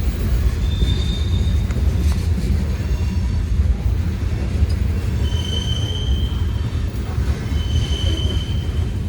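Freight train cars rolling past with a steady low rumble, and short high-pitched wheel squeals, once about half a second in and a few times in the second half.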